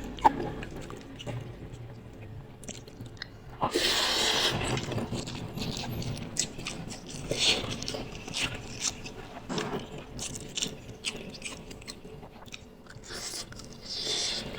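Close-up eating of instant noodles: mouth noises of biting and chewing with many small wet clicks, and a louder noisy stretch about four seconds in.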